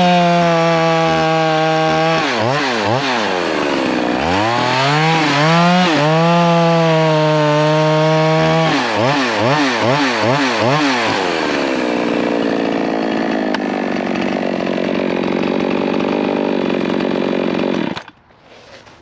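Poulan Pro Super 380 two-stroke chainsaw running at full throttle while bucking pine, its revs rising and falling rapidly between cuts. It then drops back to idle and is shut off near the end.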